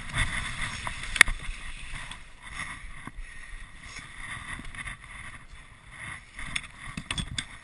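Dog sled moving over snow: the runners hiss and scrape steadily, with a sharp knock about a second in and a few clicks and rattles of the sled frame near the end.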